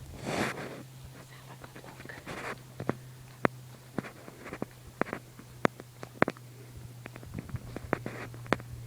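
Irregular sharp clicks and a couple of brief rustles over a steady low hum.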